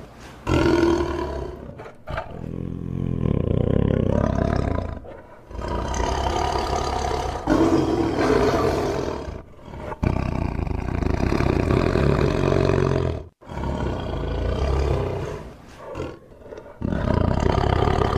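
Tiger roaring and growling in a string of about six long, deep calls, with short gaps between them. Several calls cut off suddenly before the next begins.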